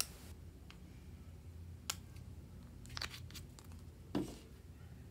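A few light clicks and taps from plastic paint bottles and pigment jars being handled over a plastic tray, with a small cluster about three seconds in and a duller knock about four seconds in.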